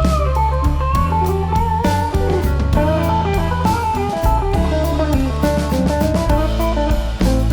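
Background music: an electric guitar playing a bending lead line over bass and a drum kit.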